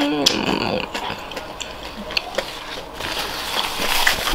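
A person chewing a mouthful of battered fried tempeh with lips closed, close to the microphone: irregular soft clicks and mouth noises, after a falling hummed 'mmm' that trails off at the very start.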